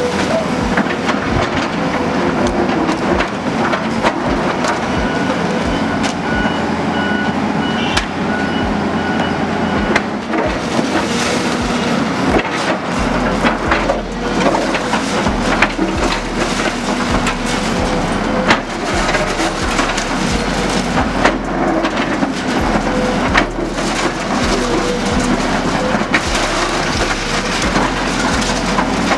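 Hydraulic excavator demolishing a masonry building: its diesel engine runs under load while the bucket breaks and crushes concrete walls, with repeated cracks and knocks of falling rubble. A reversing alarm beeps during the first eight seconds or so, then stops.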